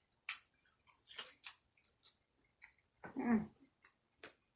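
Close-up eating sounds of a person chewing: scattered wet smacks and clicks of the mouth, with a louder, fuller one about three seconds in.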